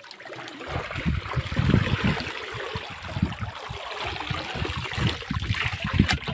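Water sloshing and trickling against and inside a small wooden outrigger boat, with irregular low rumbles underneath.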